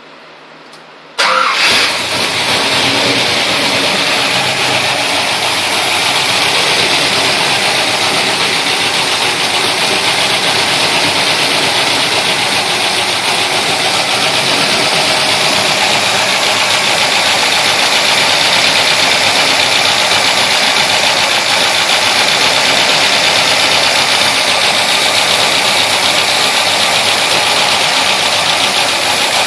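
Pontiac GTO's V8 engine starting for the first time after repairs from an engine fire: it catches abruptly about a second in, then keeps running steadily at idle.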